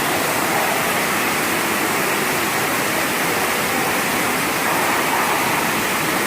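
Steady rush of falling water, an even noise with no breaks.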